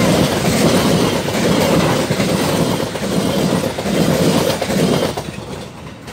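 Passenger train coaches passing close at high speed, wheels running over the rails with a loud surge roughly every second as each bogie goes by. The last coach clears about five seconds in and the noise drops away as the train recedes.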